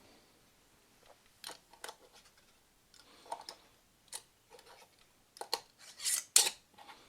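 Metal canning lid and screw band clicking and scraping against the threads of a glass quart jar as the band is put on and finger-tightened. Scattered light clicks lead up to a cluster of louder scraping strokes near the end.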